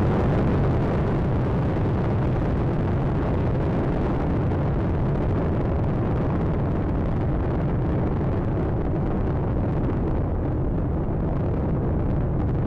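Space Shuttle Atlantis's main engines and solid rocket boosters during ascent: a steady, dense rumble, its higher hiss slowly fading over the second half as the vehicle climbs away.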